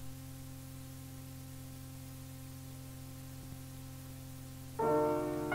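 A steady low electrical hum in the recording, then near the end a piano comes in with a held chord.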